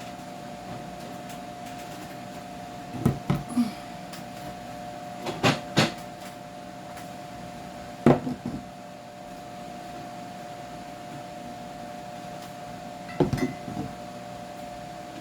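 Scattered knocks and clatters of things being handled while cleaning the inside of a refrigerator, in four short clusters, the loudest about eight seconds in, over a steady faint hum.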